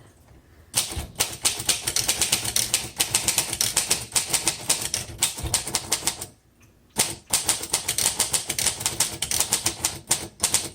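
1936 Royal Model O manual typewriter being typed on at a quick, steady pace, a fast run of sharp keystroke clacks with a short break about two-thirds through.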